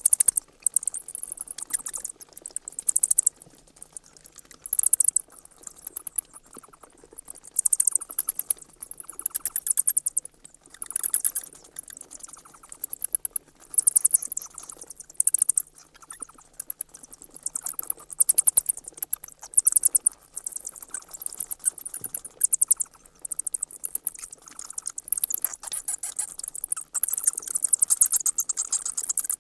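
Bats squeaking: rapid trains of very high-pitched chirps and clicks in bursts of a second or two, repeating again and again.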